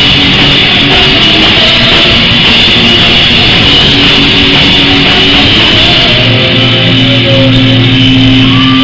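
Live rock band playing, distorted electric guitar to the fore, with long held low notes from about two-thirds of the way in.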